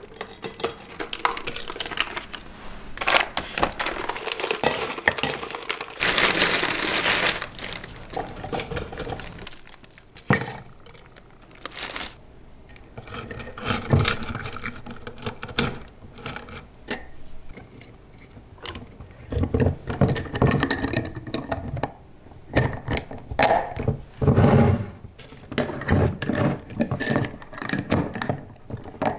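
Dried potpourri pieces and pinecones dropped and pushed into glass swing-top jars: repeated glass clinks and knocks with dry rustling, and a longer rustle about six seconds in.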